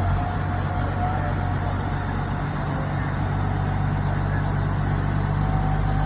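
Heavy crane engine running steadily, a low even hum.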